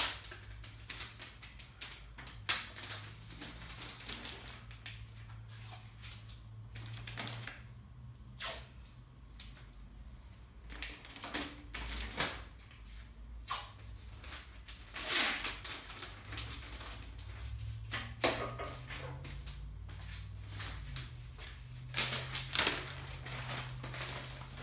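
Green masking tape being pulled off the roll in short, irregular rasping rips and pressed down over newspaper masking paper, with paper crinkling. A low steady hum sits underneath.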